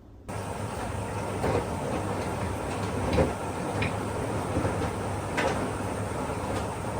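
AQUA front-loading drum washing machine running, the drum turning the laundry with a steady mechanical noise and a low hum, with irregular knocks as the load drops. It starts suddenly just after the beginning.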